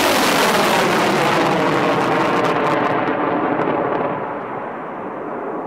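Nike Hercules surface-to-air missile launch: the solid-fuel rocket motors' loud rushing roar from lift-off, with some crackle. It starts to fade about four seconds in, the high end dropping away first, as the missile climbs away.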